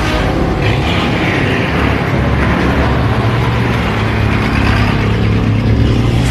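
A motor vehicle's engine running steadily, with a low hum and a rushing noise of travel over it.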